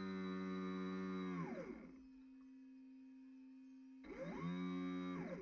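An RC fireboat's motor whining steadily under throttle, spinning down with a falling pitch about a second and a half in to a faint steady hum, then winding back up with a rising pitch about four seconds in and easing off again near the end.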